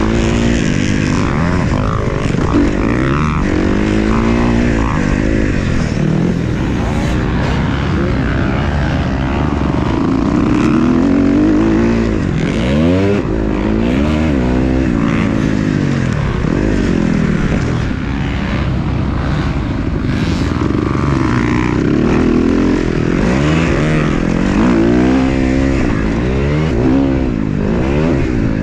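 Several motocross dirt bikes racing on track, their engines overlapping and revving up and down over and over as riders accelerate, shift and back off.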